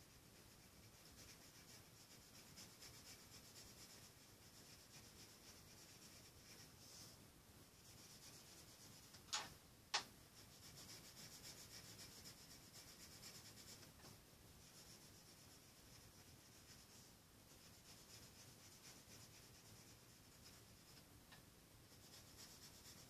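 Faint scratching of a dark coloured pencil shading on paper in short, steady strokes. Two sharp clicks about half a second apart come near the middle.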